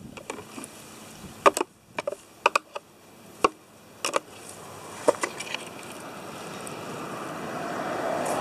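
Sharp plastic clicks and knocks as a screwdriver and hands work open an old black plastic rodent bait station, a dozen or so in clusters over the first five seconds. A rushing noise then swells steadily louder over the last few seconds.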